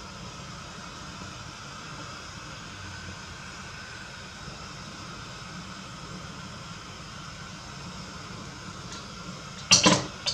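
Gas burner flame rushing steadily under a tilted steel wok, heating its sides for seasoning. About 9.7 s in the wok is set back down on the stove grate with a loud metallic clatter, and a smaller knock follows.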